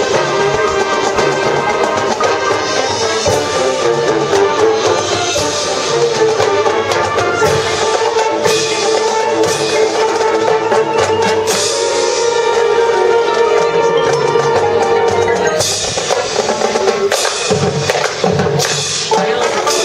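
High school marching band playing its field show: held wind chords under busy drumline and front-ensemble percussion, with sharp strikes throughout.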